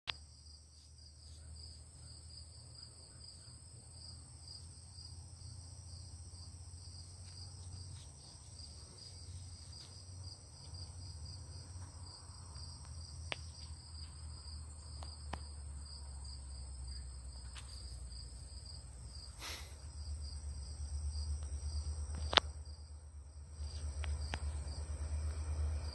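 Insects, crickets among them, trilling steadily in high, evenly pulsing tones. A low rumble underneath grows louder over the last several seconds as a train approaches, and a few sharp clicks stand out.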